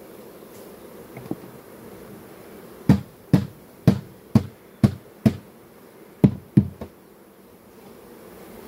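Honeybees buzzing steadily around an open hive, with a run of about eight sharp knocks, roughly two a second, from about three seconds in to near seven seconds, with a short gap before the last few.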